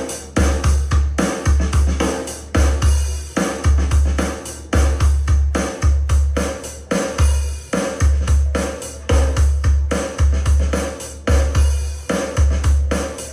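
A drum-heavy test track played back through a home-built loudspeaker: deep, loud kick-drum hits in quick clusters, with snare and cymbals over them.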